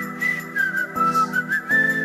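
Background music: a whistled tune with notes that slide up into pitch, over held chords.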